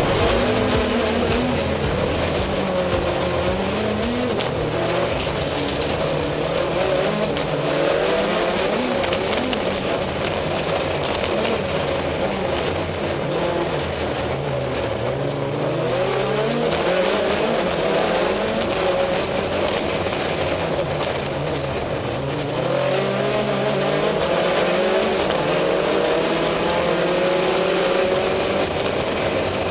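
Rally car engine heard from inside the cockpit under hard driving: the revs climb through the gears and drop sharply at each shift or lift, over and over, with steady road and tyre noise and a few sharp ticks.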